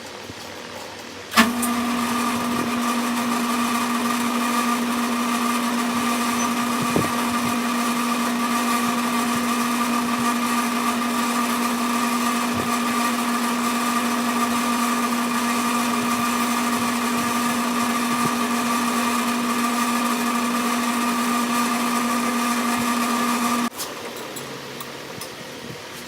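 Sidney lathe switching on with a click about a second in and running at a steady speed with an even motor hum and whine, winding resistance wire into a coil on a rod. It stops abruptly after about twenty seconds.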